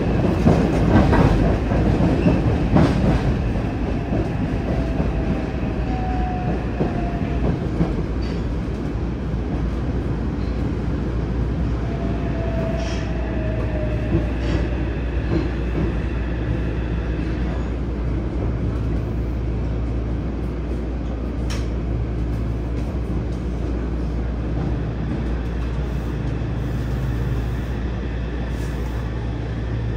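Running noise inside a Yokohama Municipal Subway Blue Line 3000S car in a tunnel: a steady rumble of wheels on rail with the hum of its Mitsubishi IGBT-VVVF-driven motors, scattered rail clicks, and a couple of faint, slightly falling whines. It is a little louder in the first few seconds.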